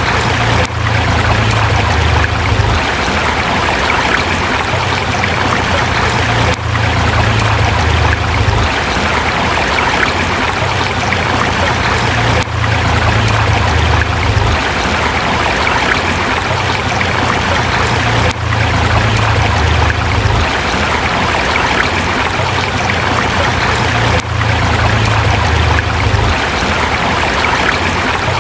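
Forest river water running over rocks: a steady, loud rush, with a low rumble that swells and fades about every six seconds.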